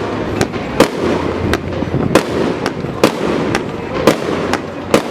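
Fireworks shells bursting in quick, irregular succession: about a dozen sharp bangs in a few seconds over a continuous crackling din.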